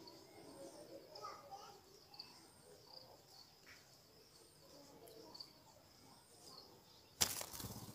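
Soft, faint chirping of bulbuls at the nest over a high-pitched background note that repeats about twice a second. Near the end there is a sudden loud rustle lasting under a second.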